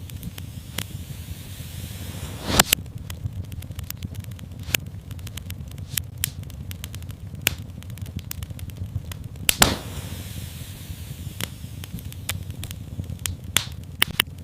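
Wood fire burning in a fireplace: a steady low rumble and hiss with scattered sharp crackles and pops, two louder pops about a third of the way in and again past halfway.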